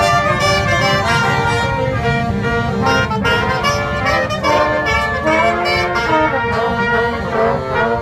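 Brass band playing live inside a subway car: trumpet, trombone and saxophone together in a lively, continuous tune.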